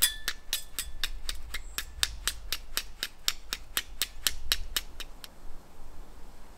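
Flint struck repeatedly against a steel fire striker, Viking-style, to throw sparks onto tinder: sharp clicks with a slight metallic ring, about four a second, stopping about five seconds in.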